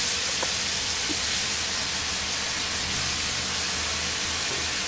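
Onion, garlic and ground-spice masala sizzling and bubbling steadily in hot oil in a frying pan, as it cooks down with a little water until the oil separates.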